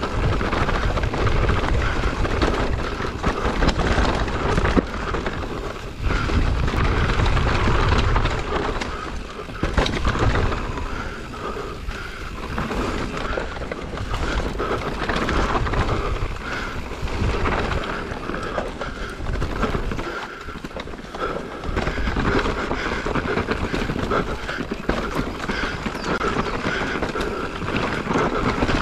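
Mountain bike riding down a dirt forest singletrack: tyres rolling over dirt and leaf litter, with the chain and frame rattling over bumps. Wind rumbles on the bike-mounted microphone.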